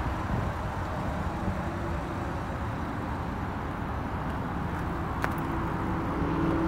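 Steady low rumble of vehicle noise, with a single sharp click about five seconds in.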